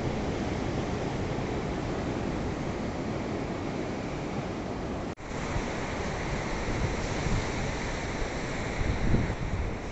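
Steady rush of ocean surf, with wind buffeting the microphone. The sound drops out for an instant about five seconds in, and a few low wind gusts hit the microphone near the end.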